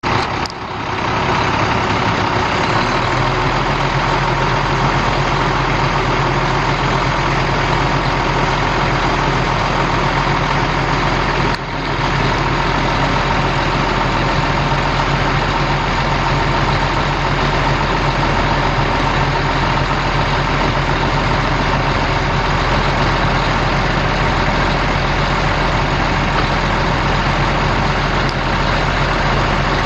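Cummins L10 inline-six turbo diesel of a 1993 International Eagle 9400 dump truck idling steadily.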